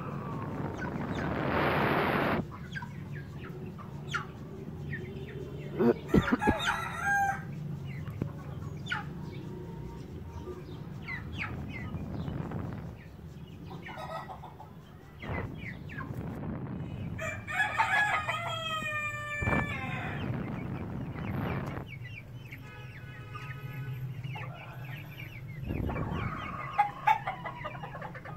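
Young Brahma chickens clucking and calling on and off, with a young cockerel's crow, a pitched call of about two seconds, about two-thirds of the way through. A rushing noise covers the first couple of seconds.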